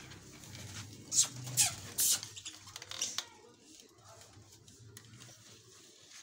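Budgerigars giving a few short, sharp, high-pitched chirps in the first half.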